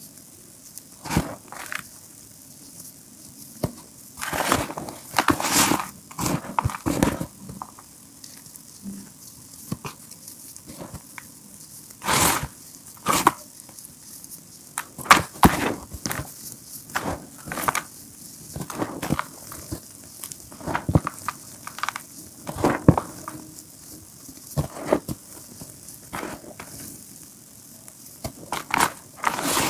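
Hands squeezing and crumbling dry lumps of re-formed gym chalk: crisp, crunchy crumbling in irregular bursts, with short quieter pauses between handfuls.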